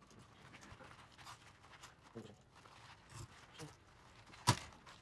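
Trojan hand riveter being squeezed through a pop rivet, with faint handling noises and one sharp snap about four and a half seconds in as the rivet's mandrel breaks off.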